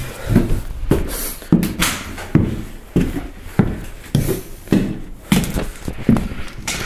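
Footsteps climbing stairs, a steady series of thumps about two a second.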